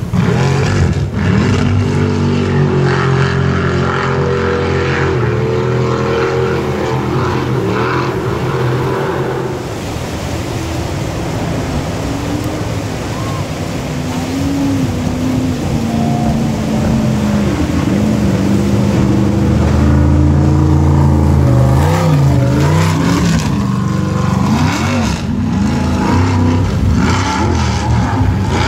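Racing jet boat engines running hard at high revs through river rapids, the pitch rising and falling as the boats pass, over the rush of the whitewater. One boat's engine is strong for the first several seconds and fades; another grows louder and is loudest about two-thirds of the way in.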